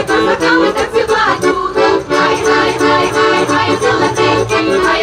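Ukrainian folk ensemble of women singing together, accompanied by an accordion.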